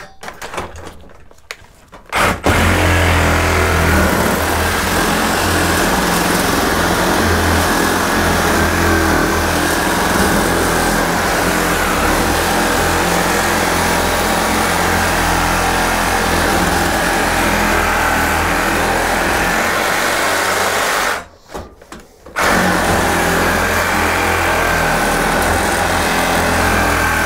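Cordless reciprocating saw cutting through steel, starting a couple of seconds in, running steadily with a wavering whine, stopping for about a second near the end and then cutting again. The steel is hard going, 'like cutting through diamonds'.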